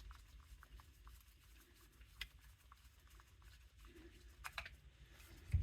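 Faint scattered clicks and light taps of small carburetor parts being handled while the carb is taken apart, a few sharper clicks about two seconds in, near four and a half seconds and at the very end.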